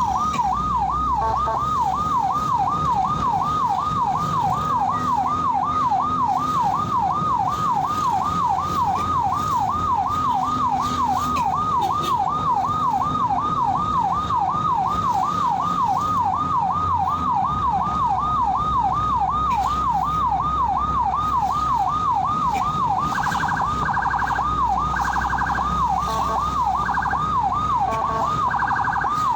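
Ambulance siren yelping, its pitch sweeping up and down about twice a second over the rumble of the vehicle on the road. Near the end it switches to short bursts of a faster, choppier tone.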